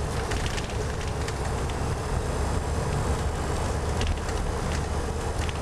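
Shuttle bus driving, heard from inside the cabin: a steady low engine and road drone with scattered light rattles.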